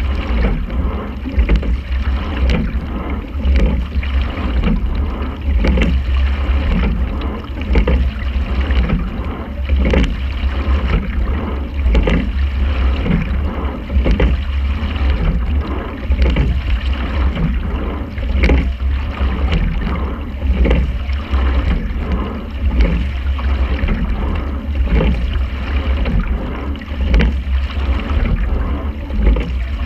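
Quad sculling boat under way: oars and oarlocks knocking in a steady stroke rhythm, about one stroke every two seconds, over a constant low rumble of water and wind.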